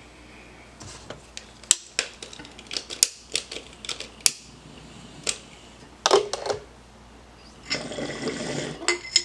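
A run of sharp clicks and taps as a lighter is worked over a glass bong, then, near the end, about a second of water bubbling in the bong as smoke is drawn through it.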